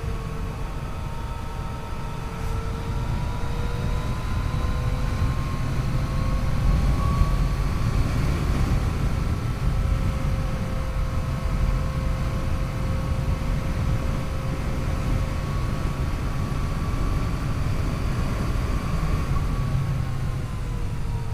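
Yamaha FJ-09's 847 cc inline three-cylinder engine running under way, its pitch drifting gently up and down with the throttle, over a steady low rumble.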